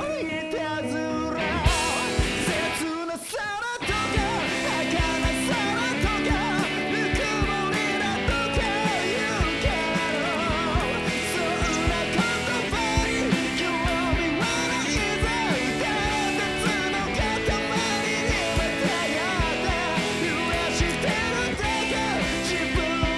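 Rock song with singing over a full band and a steady drum beat. The bass drops out briefly about three seconds in, then the full band comes back in.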